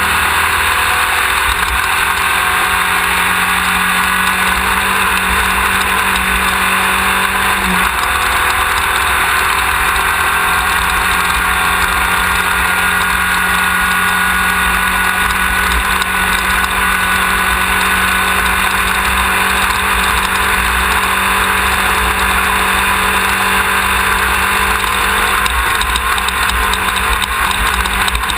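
Off-road race car's engine running hard and steady under way, its pitch rising and falling only slightly, mixed with heavy wind and rattle noise picked up by a rear-mounted onboard camera.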